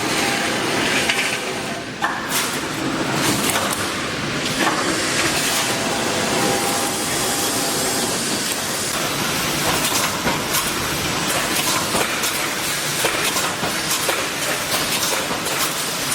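Welded wire mesh machine running: a steady mechanical clatter with a constant hiss and frequent small clicks.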